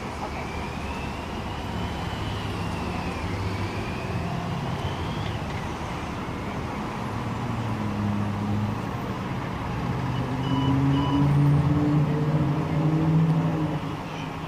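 Traffic at a busy city intersection, with cars and trucks driving past. About ten seconds in, an engine grows louder and climbs in pitch as a vehicle pulls away, then fades near the end.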